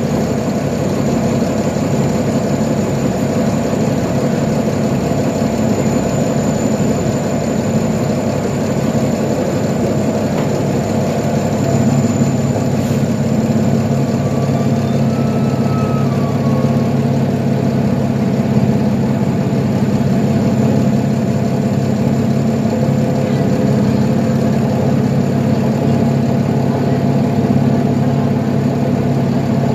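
Engine of a 2012 Nova Bus LFS articulated city bus idling steadily, heard from inside the passenger cabin. About twelve seconds in, the hum grows a little louder and takes on a deeper tone.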